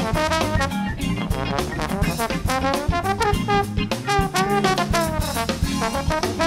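Live funk-jazz band playing: a horn plays a bending melodic solo line over drum kit and a bass line.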